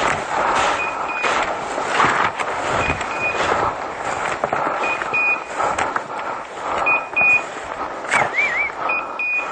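Electronic beeper collar on a hunting dog sounding double beeps about every two seconds, over the swish and crackle of someone pushing through scrubby undergrowth on foot. A short warbling tone comes in about eight seconds in.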